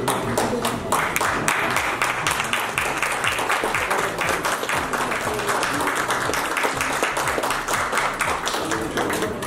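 Audience applauding steadily: many hands clapping at once in a continuous patter.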